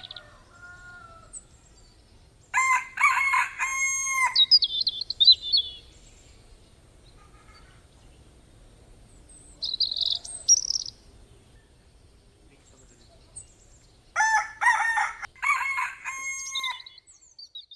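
A rooster crowing twice, each crow a long call ending on a held note, with small birds chirping between the crows.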